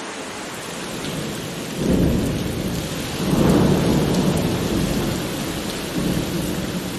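Steady rain with rolls of thunder: a low rumble about two seconds in, a longer one from about three to five seconds, and a shorter one near six seconds.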